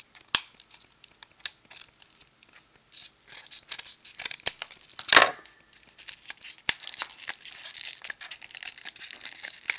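Scissors snipping through a yellow padded mailer envelope: scattered sharp snips, one louder crunch about halfway, then steady crinkling and tearing of paper and plastic as the envelope is pulled open.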